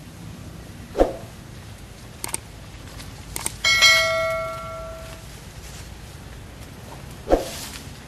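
Subscribe-button animation sound effects: a short hit about a second in, a few mouse clicks, then a bell ding that rings and fades over about a second and a half, and another short hit near the end.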